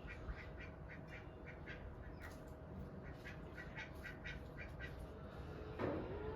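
Birds calling in a rapid run of short notes, about four a second, with a louder, longer call that slides in pitch near the end.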